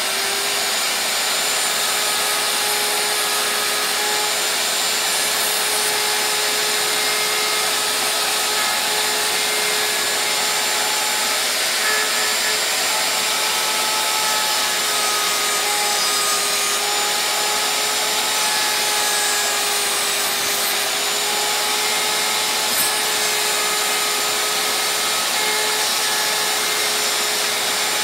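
Electric router running steadily at full speed while cutting a drawer board: a constant high whine over the hiss of the bit in the wood.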